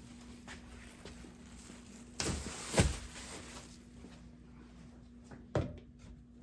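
Knocks and clunks of a product container being handled on a work surface: a pair about two and three seconds in, the second the loudest, and one more near the end, over a faint steady hum.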